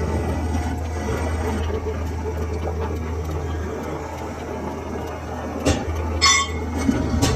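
Lathe running steadily with a low hum and a noisy working sound, with a few sharp metallic clicks and a brief high-pitched squeal a little past six seconds in.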